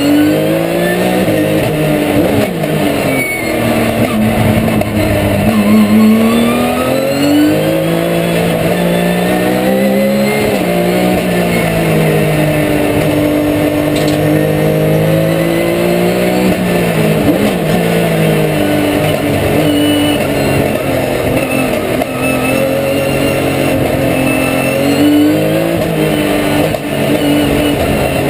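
Porsche 911 GT3 Cup race car's flat-six engine at racing speed, heard from inside the cockpit. Its pitch climbs under acceleration and drops off as the car slows for corners, several times over.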